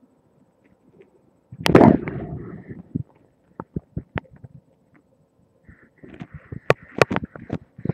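Contact noise from a webcam microphone pressed against the body. A loud rubbing rumble comes about one and a half seconds in, followed by scattered sharp clicks and a cluster of crackling clicks near the end.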